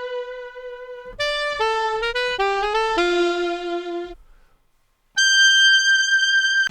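Sampled saxophone from an SF2 SoundFont played on a keyboard: a held note, a quick run of short notes, a lower held note, a brief gap, then a high held note with vibrato.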